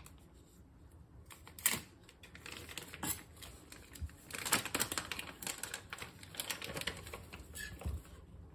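Plastic bag crinkling and rustling as it is handled, in irregular crackly bursts, with a couple of light knocks on the counter.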